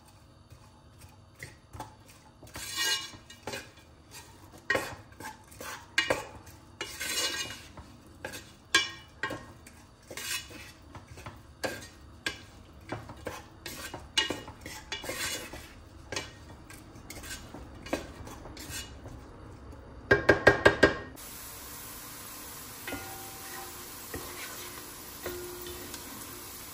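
Wooden spoon stirring chopped onion in olive oil in a granite-coated pot, scraping and clacking against the pot's base and sides in an irregular run of soft knocks. About twenty seconds in come five quick, louder knocks, then a steady faint hiss.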